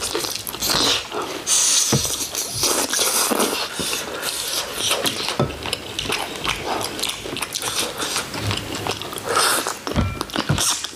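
Close-up eating sounds of spicy braised chicken: chewing with many short wet smacks and clicks of the mouth.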